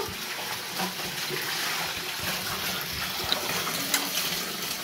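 Tap water running into a concrete laundry sink while clothes are washed by hand, with steady splashing and dripping as a wet garment is lifted and wrung.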